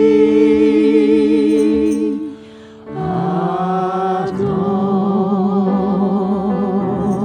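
Worship song: voices hold a long sung note with vibrato, break off briefly about two seconds in, then take up another long held note about three seconds in.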